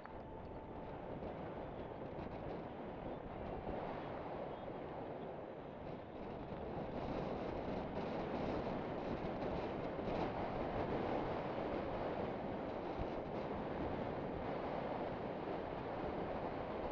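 Wind buffeting the bike-mounted camera's microphone, mixed with the rumble of mountain bike tyres rolling over a dirt fire road: a steady rush that grows louder about seven seconds in.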